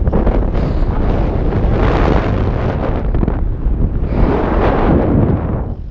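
Wind rushing over a helmet-mounted action camera's microphone as a mountain bike rolls fast downhill from dirt onto pavement. The rush swells twice and eases off near the end.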